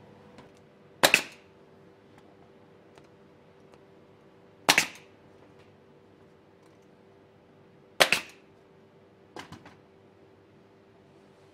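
Nail gun firing three times, a sharp crack about every three and a half seconds, tacking small wooden blocks in place. A few softer clicks follow near the end.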